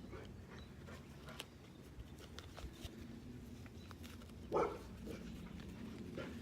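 A single short dog bark about four and a half seconds in, over faint scattered clicks.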